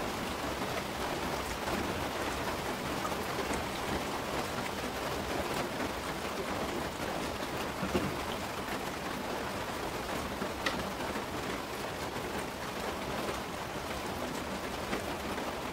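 Steady rain falling, an even continuous hiss, with a few faint soft clicks over it.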